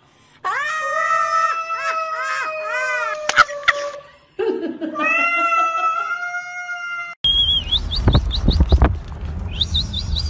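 Cat yowling during a scuffle between two cats: long, wavering, drawn-out cries, with a short break about four seconds in. Some seven seconds in, a sudden cut brings a loud steady rumble with a run of short, quick rising chirps.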